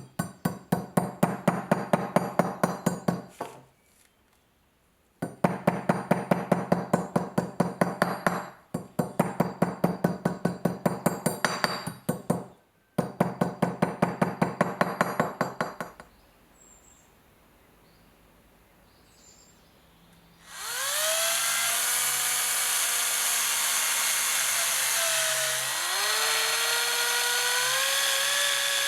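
Fast rhythmic hand-tool strokes, about three or four a second, in four runs of a few seconds each. About two-thirds of the way in, an electric power tool spins up and runs with a steady whine that shifts in pitch.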